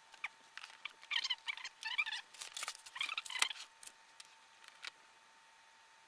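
Small hardware being handled: a run of light clicks and squeaky scrapes, busiest between about one and three and a half seconds in.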